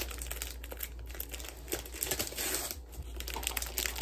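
Plastic film wrapper of a packaged strawberry sandwich crinkling as it is pulled open by hand, a run of irregular small crackles.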